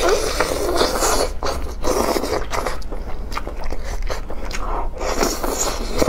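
Close-up eating sounds: biting into a roast chicken leg, then tearing the tender meat and skin apart by hand and chewing, a dense run of wet crackles and clicks.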